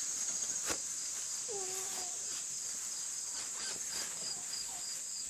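Steady high-pitched trilling of insects, crickets, with a faint chirp pulsing a few times a second. A brief faint animal call comes about a second and a half in.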